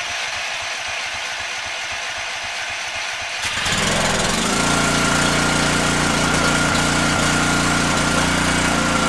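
Power Stroke 3200 PSI gas pressure washer engine cranking for about three and a half seconds, then catching and running steadily with a high whine over it. It is a cold first start on choke.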